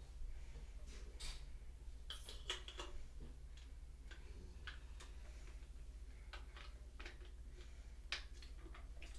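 Light plastic clicks and taps as a lid is handled and fitted onto a small plastic toy test tube, a cluster of them about two to three seconds in and another near the end, over a low steady hum.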